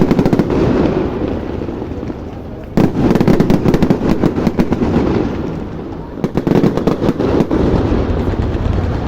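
Fireworks display: dense volleys of rapid bangs and crackling, in waves. One barrage fades out about two seconds in, a new one starts abruptly near three seconds, and another builds from about six seconds in.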